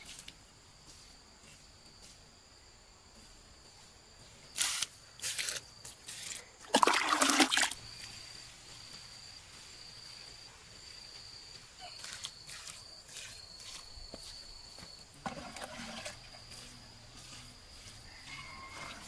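Water poured from a plastic scoop splashing onto dry soil: two brief splashes about five seconds in and a longer one of about a second near seven seconds. A thin high tone comes and goes in the background through the middle.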